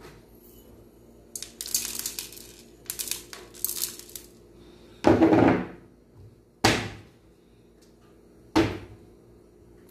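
Light crackling and rattling as whole black peppercorns are sprinkled over fish in an aluminium pot, then three sharp knocks of things set down on the table, the first about five seconds in and the loudest.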